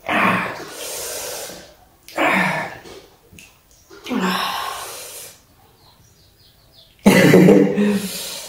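A person's breathy huffs of laughter close to the microphone: four bursts of about a second each, the last the loudest.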